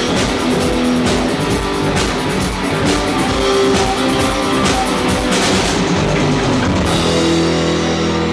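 A rock band playing, with guitar and a drum kit. About seven seconds in the drumming stops and a held chord rings on.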